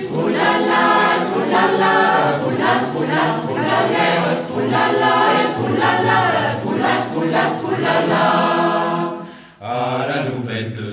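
A choir singing a French song, with a brief pause between phrases about nine and a half seconds in.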